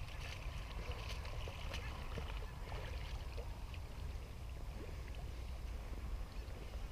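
Faint splashing and trickling of water from a dog swimming across a canal, over a low steady rumble.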